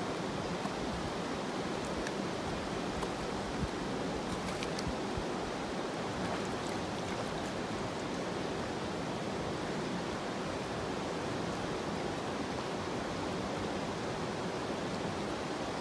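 Steady rush of a fast-flowing creek running over rocks.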